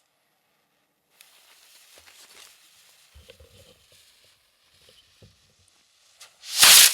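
Fuse of a consumer stick rocket hissing faintly for several seconds, with a few footsteps. Near the end comes a short, loud rushing whoosh as the rocket launches.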